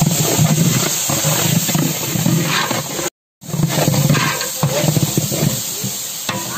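Sliced onions and herbs frying in hot oil in a large metal pot: a loud, continuous sizzle with the scraping of a ladle stirring them. The sound cuts out completely for a moment about three seconds in.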